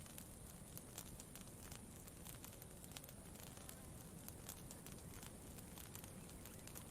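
Campfire crackling quietly, with irregular small pops and snaps over a low, steady rumble.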